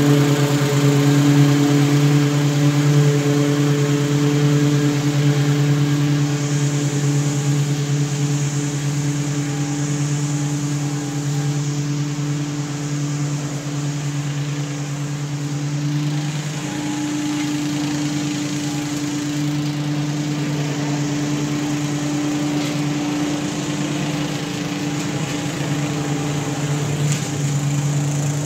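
Honda 270cc (8.5 hp) engine on a walk-behind lawn mower running steadily while mowing grass. It grows fainter over the first ten seconds or so as the mower moves away, then holds at a lower level.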